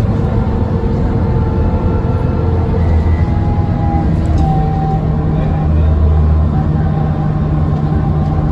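TransBus Trident double-decker's Cummins ISCe diesel engine heard from inside the bus while it is under way, a steady low drone whose note shifts a few times.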